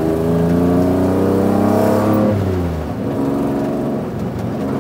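Swapped-in Jaguar/Ford Duratec 3.0 V6 in the MGB pulling hard, heard from inside the cabin: the revs climb, then fall away a little over two seconds in and settle lower.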